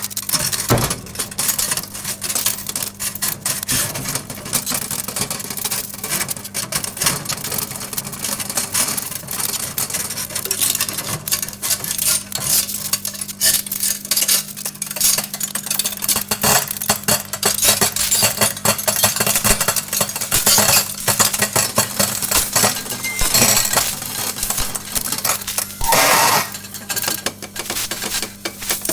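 Several metal forks arcing inside a running microwave oven: dense, irregular crackling and snapping sparks, with louder flurries now and then, over the oven's steady low hum.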